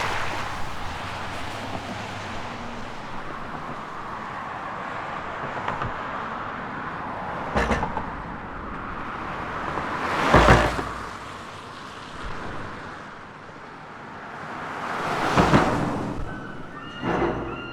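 Steady road traffic noise from Burrard Bridge, with vehicles swelling past and fading, louder about ten and fifteen seconds in, and a short knock a little before eight seconds in.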